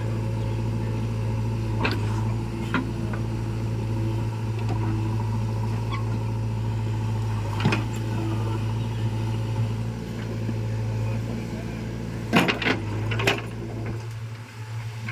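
Heavy diesel engine running steadily at a constant speed, with a few sharp knocks scattered through it and a cluster near the end.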